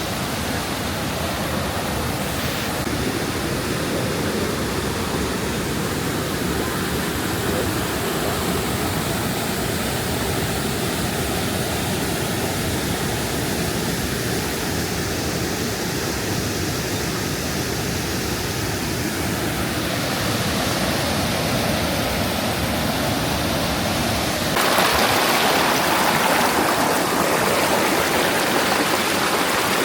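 Steady rush of water from the Krka river's waterfalls and cascades. About twenty-five seconds in it grows louder and hissier.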